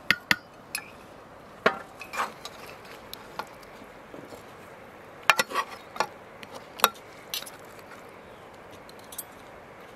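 Metal spoons clinking against a cooking pot and plates while stew and rice are served, in scattered sharp clinks, the busiest and loudest about five to seven seconds in.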